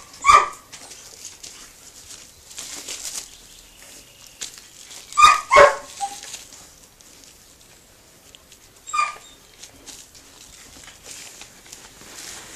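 A dog barking in short single barks: one at the start, two in quick succession about five seconds in, and one more about nine seconds in.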